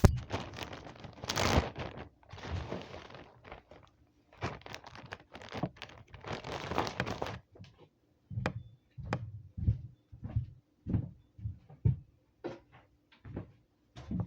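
A sharp knock, then chicken feed rustling and pouring from a bag in a few short spells, followed by a run of footsteps, about one or two heavy steps a second.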